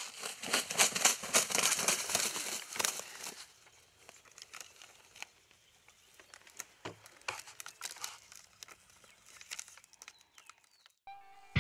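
Crackling, crunching rustle of dry leaf litter being stirred for the first few seconds, then fainter scattered rustles and clicks while the dead wild turkey and its paper tag are handled.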